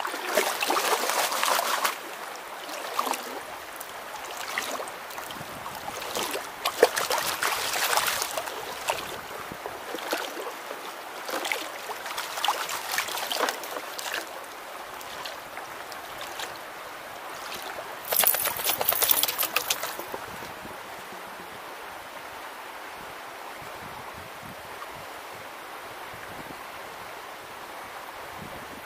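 Creek water splashing and sloshing, with gravel rattling, as hands dig under a rock and swirl a plastic gold pan in a shallow stream. It comes in uneven bursts over the first twenty seconds, the loudest near the end of them; after that only the steady trickle of the creek remains.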